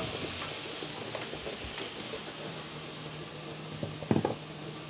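Liquid bubbling and hissing in a pan as boiling water meets seared oxtail, with a faint steady hum underneath. A brief knock sounds about four seconds in.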